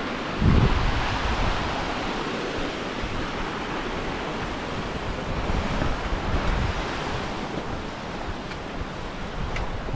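Wind buffeting the microphone over the steady rush of a small mountain stream running over rocks, with strong gusts about half a second in and again around six seconds.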